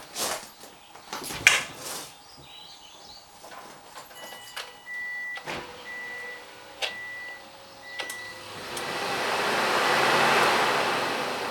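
Sharp clunks and knocks of car handling, then a dashboard warning chime beeping about five times, then the 2007 Subaru WRX STi's freshly rebuilt engine being cranked over by the starter, the noise swelling and fading near the end, as a start is tried on an engine that will not start.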